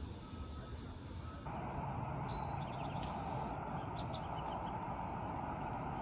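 Steady rumble of distant jet aircraft, which gets louder and fuller about a second and a half in.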